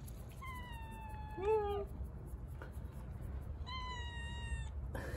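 Black-and-white long-haired kitten meowing: two long, high-pitched meows about three seconds apart, each sliding slightly down in pitch. A louder, lower cry overlaps the end of the first.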